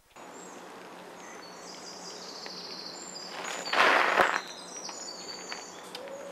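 Outdoor ambience: birds chirping over a steady background hiss. A short, loud rush of noise swells up about four seconds in and fades again.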